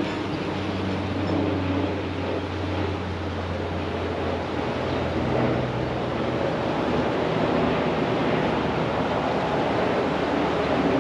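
Wind gusting over the microphone and through the bankside grass and trees, a steady rushing noise, over a low hum that steps up in pitch about five seconds in.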